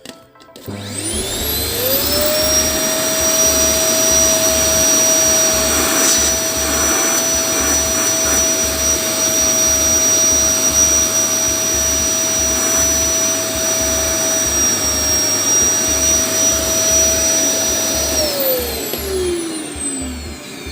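Polaris PVC 2016 vacuum cleaner motor switched on, spinning up within about a second to a steady run with a high-pitched whistle, then switched off near the end and winding down with a falling pitch. The whistle is the motor bearing whistling, and the suction is weak.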